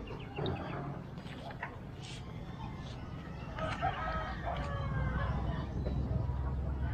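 A rooster crows once, about three and a half seconds in, a drawn-out call lasting about a second, over a low rumble.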